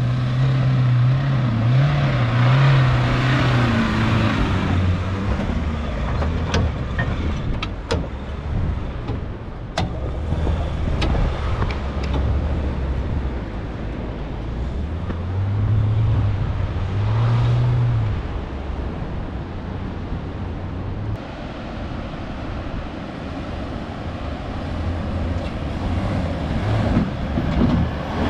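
Four-wheel-drive ute engines working hard up a soft sand track, the revs rising and falling as the drivers feed throttle through the sand. A few sharp clicks or knocks come in the middle.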